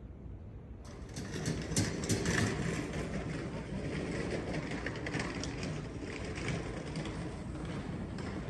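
Outdoor ambience that starts abruptly about a second in: a steady low rumble and hiss with scattered irregular knocks and clicks.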